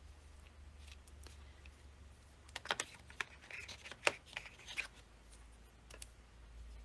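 Metal watercolor paint tubes clicking and tapping against one another as they are handled in their box: a quick run of light clicks starting about two and a half seconds in and lasting a couple of seconds, with a few faint taps before and after.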